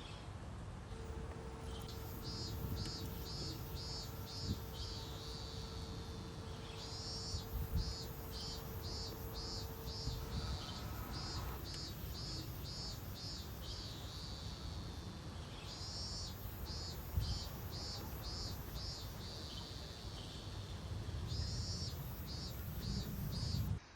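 Insect chirping in runs of short, high-pitched pulses, about two or three a second, with brief pauses between runs, over a faint low background rumble.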